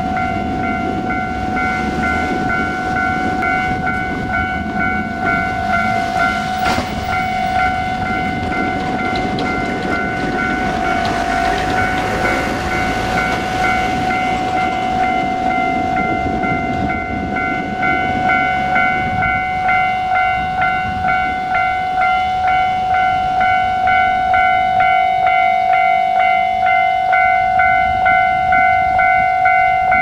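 Japanese railway level crossing's warning bell ringing continuously in a rapid repeating pattern, its pulses standing out more in the second half, signalling that a train is approaching. Road traffic runs underneath.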